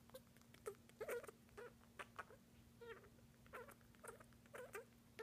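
Senegal parrot making soft little squeaks and clicks during its courtship (mating) dance: a quick string of short notes, about two a second, some sliding in pitch.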